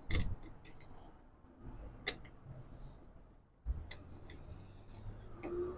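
A few sharp metal clicks and knocks as a saw blade and spacers are handled on a table saw's arbor, the loudest right at the start and about three-quarters of the way through. A bird repeats a short falling chirp every second or so.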